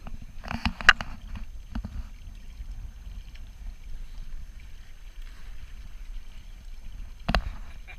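A Dart 18 catamaran under sail: water washing along the hulls over a low steady rumble, with a clatter of knocks about a second in and one sharp knock near the end.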